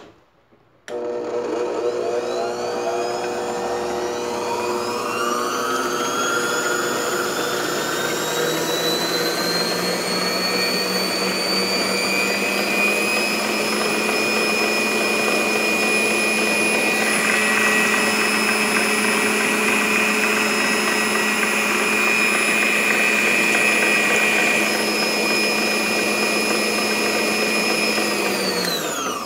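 Mondial Profissional Eletrônica Premium 300-watt stand mixer running, its wire balloon whisk beating a thin liquid mix in the bowl. The motor's whine starts about a second in, climbs slowly in pitch over the first dozen seconds, holds steady, then winds down just before the end.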